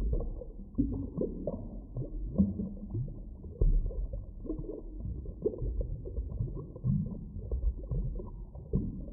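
Muffled underwater sound: irregular low rumbling and gurgling with many short moaning and grunting calls, nothing bright or sharp in it.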